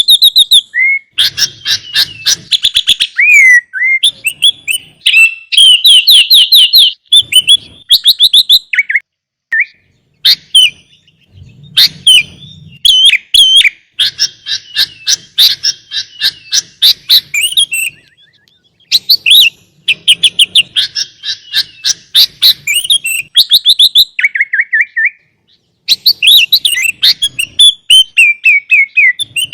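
Sooty-headed bulbul (kutilang) singing loudly in long phrases of rapid, repeated chattering notes, with short pauses between phrases. It is the full, varied song used as a training recording (masteran) to get other kept bulbuls singing.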